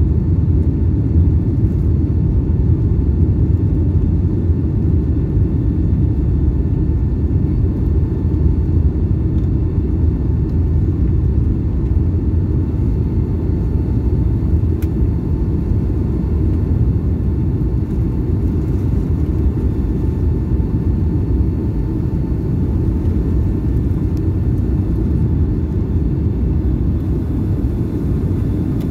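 Cabin noise inside a Boeing 757-200 airliner: a steady low rumble of engines and airflow, with faint steady tones above it and no thumps.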